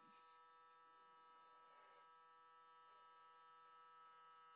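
Near silence with a faint, steady electrical hum made of several even tones.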